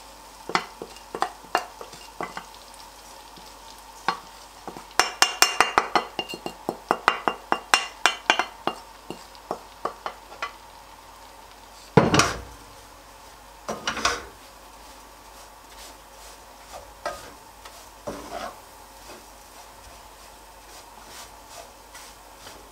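Wooden spatula stirring shredded kadayıf pastry in hot butter in a pot: quick taps and scrapes against the pan, busiest in the first half, with a couple of louder knocks about halfway through, over a faint sizzle. The pastry is being toasted in the butter until golden.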